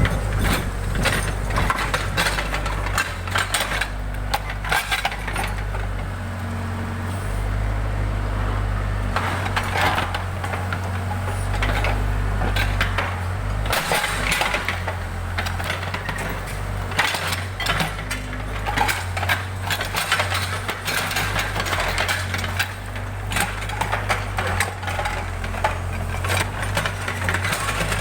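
Backhoe loader's diesel engine running steadily, with frequent clanks, knocks and crunching as the machine works its way out of a ditch.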